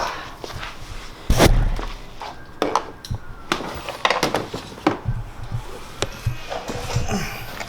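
A run of irregular knocks and clatters, the loudest a heavy thump about a second and a half in.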